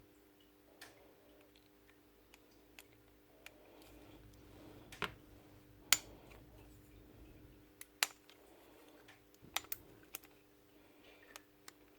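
Scattered sharp clicks and light metallic taps of small metal parts being handled and pulled off during the strip-down of a cordless rotary hammer's front end, irregularly spaced, the loudest about six seconds in. A faint steady hum sits underneath.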